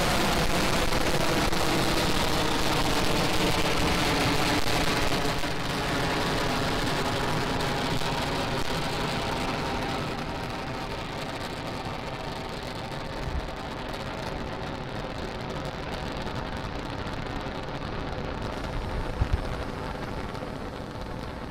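Falcon 9 first stage's nine Merlin 1D engines rumbling and crackling as the rocket climbs after liftoff. The sound grows steadily fainter and duller as the rocket gains distance, with a drop about ten seconds in.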